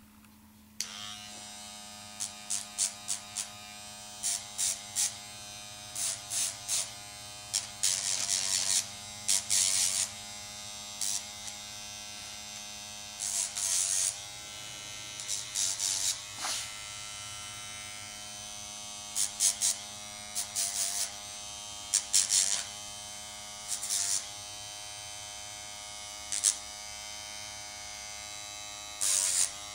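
Electric nail grinder switched on about a second in and running with a steady motor whine. Short bursts of harsher grinding noise come over and over as the spinning bit is pressed against a dog's nails.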